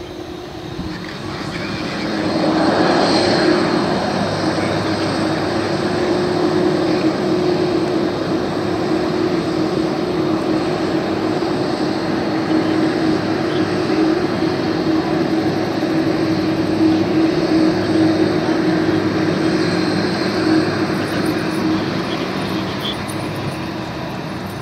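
McDonnell Douglas MD-11F freighter's jet engines running with power up as it moves off: a loud, steady roar with a constant humming tone, swelling about two seconds in and then holding.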